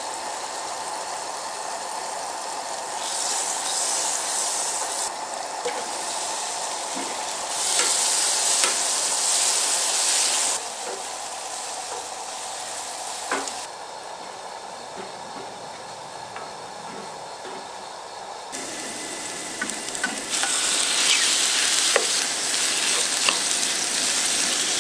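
Butter and sliced onions sizzling in a frying pan over a camp gas stove's burner, stirred with a wooden spatula that knocks and scrapes against the pan now and then. The sizzling swells loudly three times, about 3 s in, about 8 s in, and again near the end, over a steady hiss.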